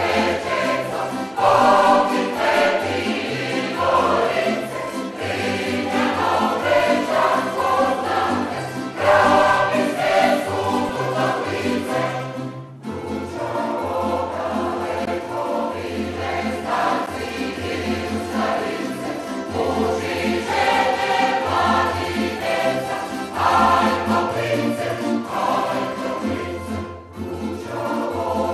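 A group of voices singing a song together, with instrumental accompaniment and a stepping bass line. The sound cuts out for a split second about halfway through and again near the end.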